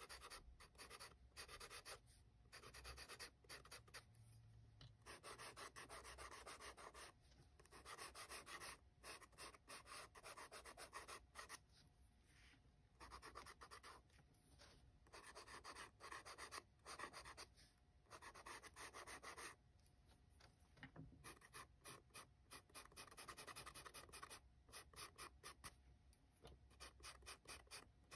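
Faint scratching of a tinted charcoal pencil shading on toned paper, in runs of quick short strokes a few seconds long with brief pauses between them.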